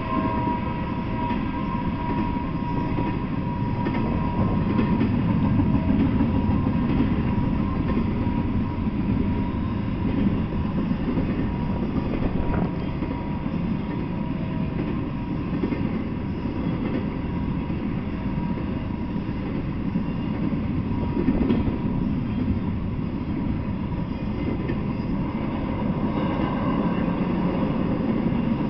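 Intermodal freight train rolling past, its container and trailer cars making a steady rumble of steel wheels on the rails.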